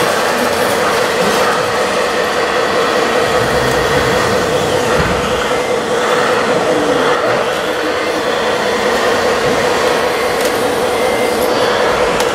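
Radio-controlled hydraulic excavator's pump running with a steady whine as the machine digs and swings its boom to load sand into a tipper truck.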